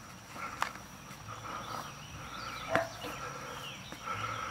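Outdoor summer ambience of insects chirring, with a steady high thin tone. Two short knocks come about half a second and nearly three seconds in, the second the louder.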